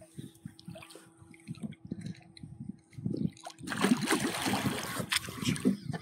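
Water splashing and knocking, with irregular low knocks at first, then a much louder splashing rush about two-thirds of the way through.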